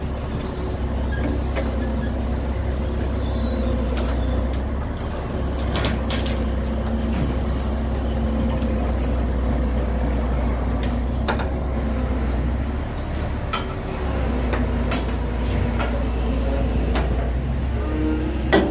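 Truck diesel engine running steadily to power the truck-mounted hydraulic crane as it lifts the track frame. The low drone eases briefly twice, and a few sharp metallic knocks come through, the loudest near the end.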